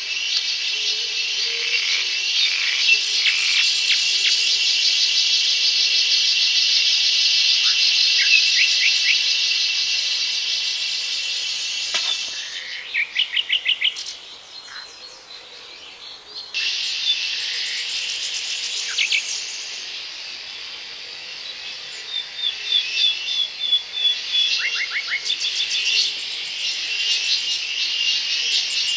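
Forest insect chorus, a dense, steady, high shrill drone, with scattered bird chirps over it. The drone fades out for a few seconds around the middle, then starts up again.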